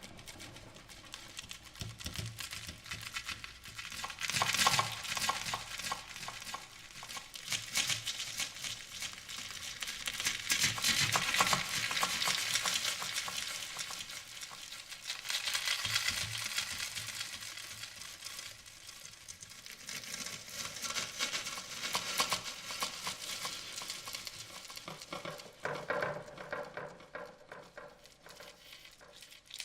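Glass noodles sizzling in a frying pan as they are stir-fried, with the clicks and scrapes of the stirring utensil. The sizzle swells in bouts every few seconds as the food is tossed.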